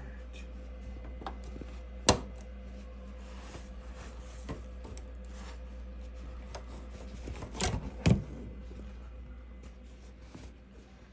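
Multi-needle embroidery machine humming steadily, with scattered light clicks and two sharper knocks, about two seconds in and around eight seconds in. The hum drops away near the end.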